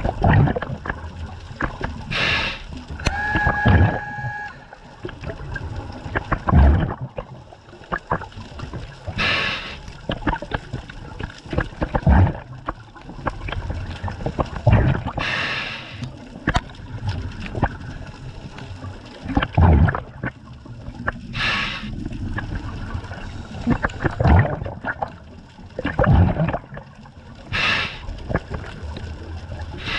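Scuba diver breathing underwater through a regulator: exhaled bubbles burst out about every six seconds, with gurgling and bubbling between. A steady pitched tone sounds for about a second and a half a few seconds in.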